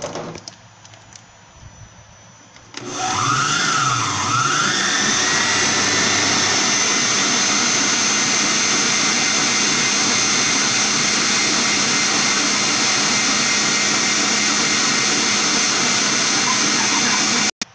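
Arno Planetária Deluxe stand mixer switched on about three seconds in, its pitch swinging up and down briefly as it gets going, then running steadily as the beater creams butter, sugar and egg yolks. It cuts off suddenly near the end.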